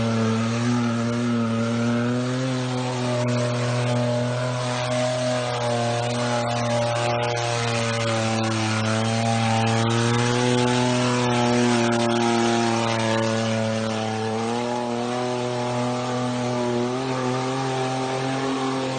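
Opel Corsa's engine running under load off-road, its revs rising and falling slowly and steadily.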